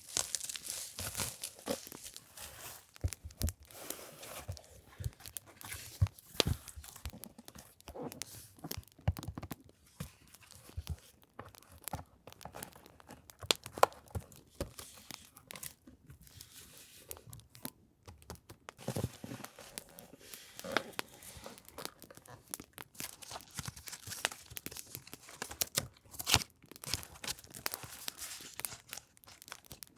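Paper and packaging rustling and crinkling close up as journaling supplies are handled and sorted, with scattered small taps and clicks throughout.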